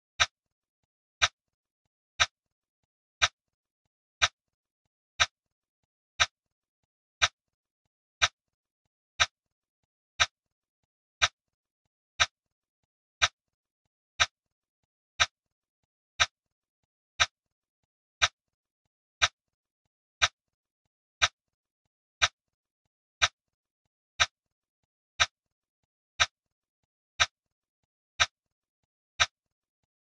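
Timer tick sound effect: one short, sharp click every second, with silence between the clicks.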